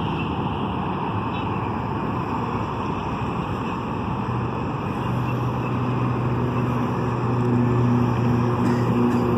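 Volantex Vector 28 RC boat running on the water: a steady rushing noise, joined about four seconds in by a low steady motor hum that grows louder.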